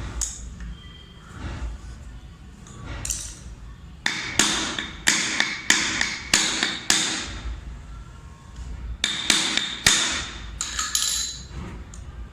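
Hammer tapping on a ceiling fan's metal motor body to seat the cover: sharp metallic knocks with a short ring, in two quick runs, about seven taps and then about five more.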